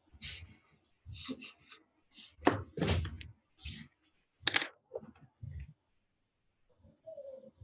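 Drawing strokes on a board: an irregular run of short strokes and taps, with a few louder knocks in the middle, stopping about five and a half seconds in.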